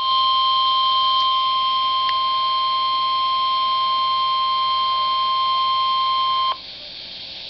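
NOAA Weather Radio warning alarm tone: one steady high tone over a radio receiver that cuts off suddenly about six and a half seconds in, leaving faint radio hiss. The tone is the alert signal that comes before a warning message is broadcast.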